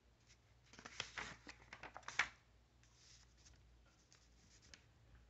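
Paper instruction sheet rustling and crinkling as it is handled: a burst of crackles about a second in, lasting a second and a half, then fainter scattered rustles.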